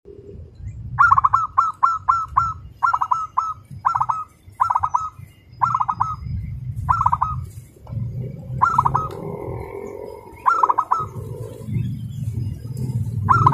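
Zebra dove (local perkutut) singing its fast, tight cooing song: short clusters of quick coos repeated in rapid succession at first, then spaced further apart toward the end, over a low background rumble.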